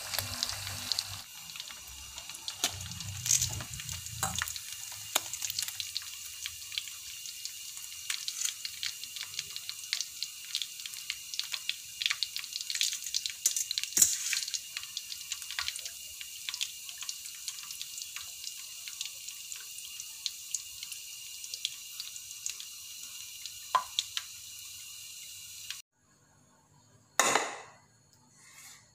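Whole tilapia deep-frying in hot oil in a wok: steady sizzling with many crackles and pops. It cuts off suddenly near the end.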